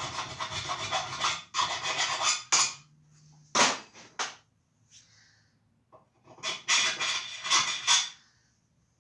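Hand-filing a steel bolt: several long rasping strokes, a pause with two sharp clicks about midway, then more strokes.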